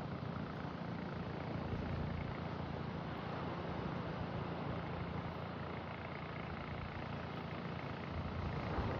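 A steady low engine hum under an even wash of noise.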